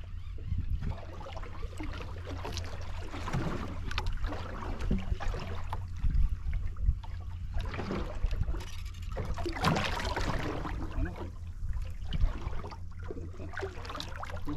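Sea water sloshing and lapping against the hull of a small outrigger boat, in irregular swells, over a steady low rumble.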